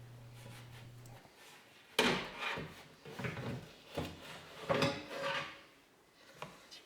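Car door window glass being lifted up and out of the door: a run of short scraping and rubbing sounds, starting about two seconds in.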